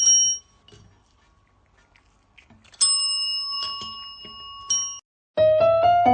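A small metal bell is struck and rings out: once at the start, again about three seconds in and once more near the end of that ring, with faint knocks in between. It cuts off suddenly, and after a moment of silence piano music begins.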